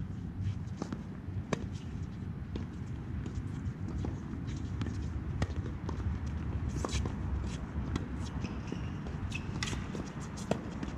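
Tennis rally on a hard court: sharp pops of racket strings hitting the ball, a few of them loud, mixed with players' footsteps, over a steady low rumble.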